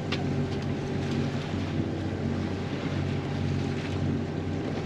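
One engine of a sailing catamaran running steadily under way in light wind, with wind on the microphone and the rush of water alongside.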